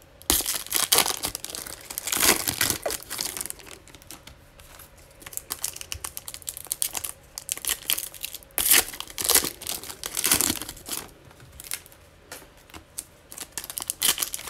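Foil trading-card pack wrappers crinkling and tearing as packs are opened and handled, in irregular bursts of crackle with short lulls between.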